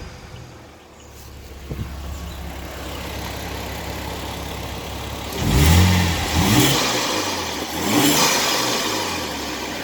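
Saab 9-3 Turbo X's turbocharged V6 idling steadily, then blipped three times in quick succession about five and a half seconds in, each rev rising and falling back to idle. The engine is being revved during a Seafoam treatment to check for an exhaust leak.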